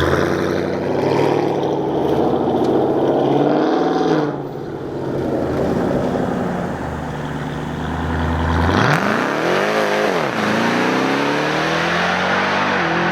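Supercharged 6.2-litre Hemi V8 of a Jeep Grand Cherokee Trackhawk accelerating hard at full throttle. The engine pitch climbs, breaks off about four seconds in, swells and falls again around nine seconds, then climbs once more.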